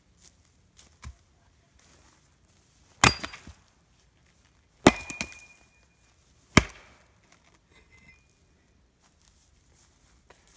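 Axe chopping and splitting firewood on a chopping block: three sharp chops about two seconds apart, each followed by a few smaller knocks.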